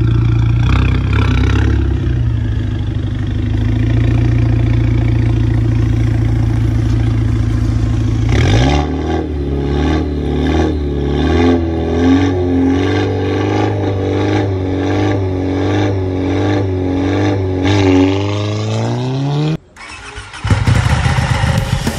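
Volkswagen Golf GTI MK6's turbocharged 2.0-litre four-cylinder through a custom full exhaust system with valves, idling steadily, then revved about eight seconds in. It holds at raised revs that waver about once a second, then climbs higher and cuts off suddenly near the end.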